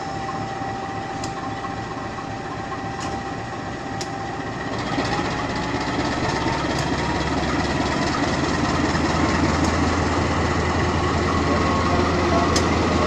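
CC 201 diesel-electric locomotive's engine running steadily as it pulls a train slowly past, with the rumble of the train growing louder about five seconds in.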